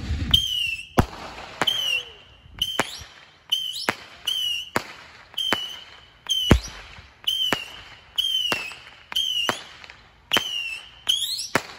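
Ground-launched fireworks firing a steady string of shots, about one and a half a second, each a sharp bang followed by a short whistle.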